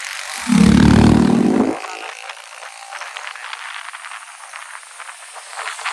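Motorcycle riding noise: steady wind and road rush, with a loud, low motorcycle engine blast about half a second in that lasts just over a second, followed by light rattling clicks.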